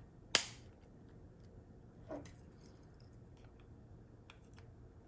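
Plastic shell of a Honda keyless remote being snapped back together, with one sharp click about a third of a second in, then a few faint clicks and ticks from handling the fob.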